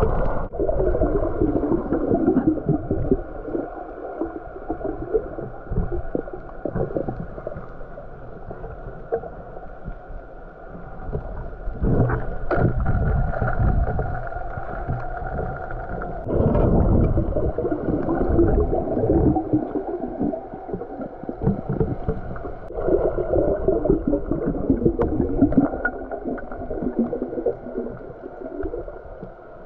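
Muffled underwater noise heard through a submerged camera: water gurgling and rushing, swelling in four louder surges of a few seconds each.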